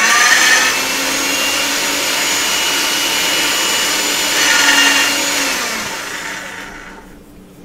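Motorized pasta machine running as polymer clay sheets are fed through on the thickest setting: a steady electric motor whir that starts abruptly, swells briefly about four and a half seconds in, then winds down and fades out near the end.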